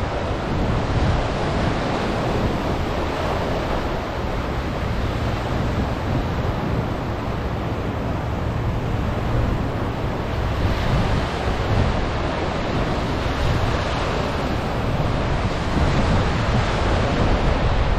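Small waves breaking and washing up a sandy beach, a steady surf wash, with wind rumbling on the microphone.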